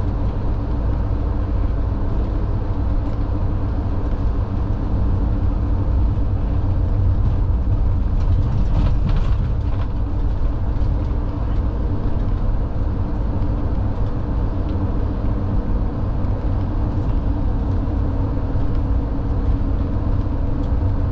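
Ambulance patient compartment on the move: a steady low rumble of engine and road noise, with a brief rattle about nine seconds in.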